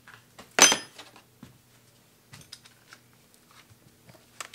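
A sharp metallic clink and clatter about half a second in, as a metal tool is put down on the workbench, then a few faint clicks and knocks of tools being handled.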